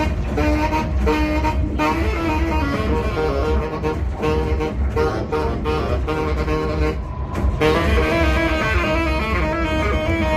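Saxophone playing a line of changing notes live over a steady low bass drone, with a brief drop in the upper notes about seven seconds in.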